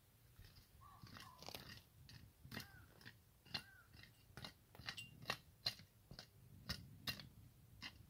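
Footsteps crunching on stony dirt ground, about two steps a second. A few short high calls sound in the first half.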